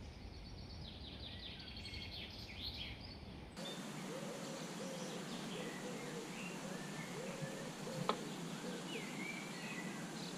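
Outdoor birdsong: small birds chirping and trilling, and after an abrupt change in the background, scattered bird calls with a low, repeated call beneath them. A single sharp click about eight seconds in.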